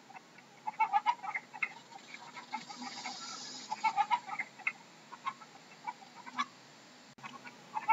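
Chicken clucking: many short clucks come in loose bunches, with brief pauses between the bunches.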